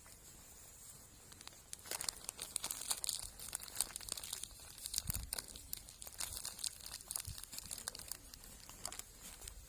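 Irregular crinkling and crackling close by, starting about two seconds in and thinning out near the end.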